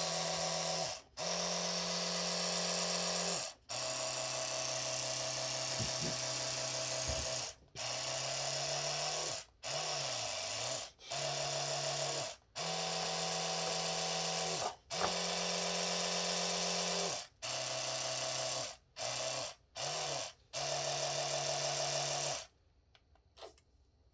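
Oral-B electric toothbrush running in the hand: a steady buzz broken by about a dozen short pauses. Its pitch and pulse pattern change from one stretch to the next, with a wavering stretch about ten seconds in, and it stops a couple of seconds before the end.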